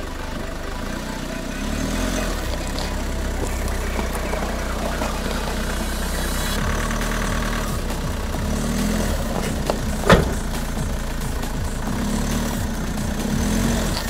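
SsangYong Rexton Sports Khan pickup's diesel engine pulling slowly up a rocky off-road track, its revs rising and falling. A single sharp knock about ten seconds in is the loudest sound.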